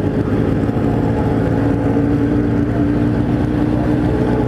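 Kawasaki Z1000 inline-four engine running at a steady cruise, its drone holding an even pitch, with wind rumble on the microphone.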